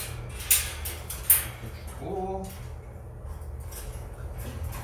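Wire parrot cage being handled: two sharp metallic clacks about a second apart as the cage door or food dish is worked, then a short squeak about two seconds in, over a steady low room hum.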